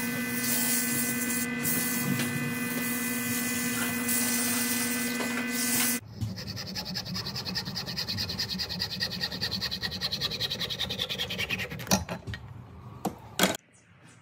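Wood lathe running with sandpaper held against the spinning wood blank: a steady motor hum under a rubbing hiss. About six seconds in it cuts off abruptly to a small frame saw cutting through the turned blank held in the lathe chuck, rhythmic strokes whose pitch falls as the cut deepens, followed by a couple of sharp knocks near the end.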